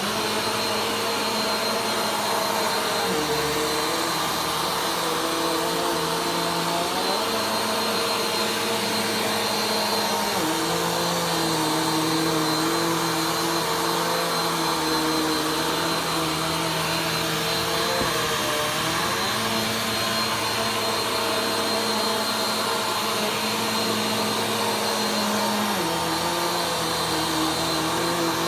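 Vacuum cleaner running continuously while slowly vacuuming a floor. Its motor hum holds steady in loudness, but the pitch shifts in small steps every few seconds as the load changes.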